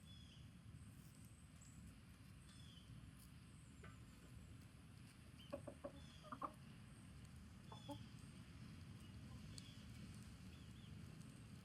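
Chickens clucking faintly: a quick cluster of short clucks about midway and one more a couple of seconds later, over a low steady background rumble, with faint high chirps scattered throughout.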